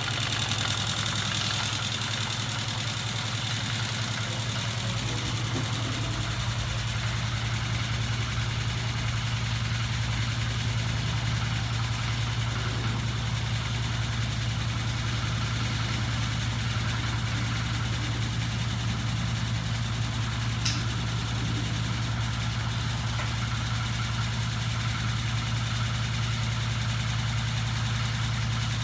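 Battery-powered electric motor driving the crankshaft and flapping wings of a homemade ornithopter mechanism, running with a steady low hum. A deeper low hum joins about five to six seconds in, and there is a single sharp click about twenty seconds in.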